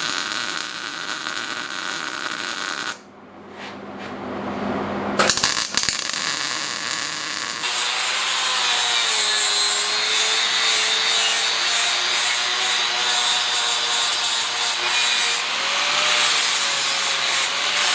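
Electric power tool cutting or grinding steel, its motor tone dipping and recovering as the load changes. The sound breaks off about three seconds in and builds back up.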